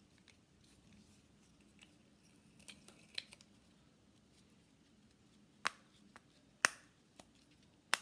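Silicone dimple bubbles on a plastic fidget spinner popping under a fingertip: a few soft clicks about three seconds in, then three sharper clicks roughly a second apart near the end.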